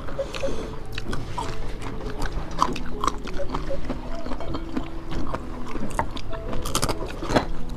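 Close-miked mukbang eating sounds: chewing and sharp, irregular crunches of crisp food as two people eat rice by hand.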